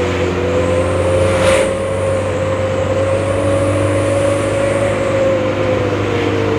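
Mitsubishi L300 engine pulling on the road, with a steady high whine ('ngir-ngir') from its newly fitted Canter-style flexible exhaust pipe, made to mimic a Canter truck's turbo whine. The whine's pitch rises slightly early on and sinks slowly as the van eases off, heard from inside the cab.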